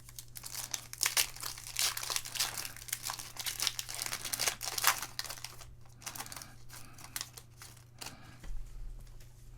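Foil trading-card pack wrappers being torn open and crumpled: dense crinkling for about the first six seconds, then sparser rustling.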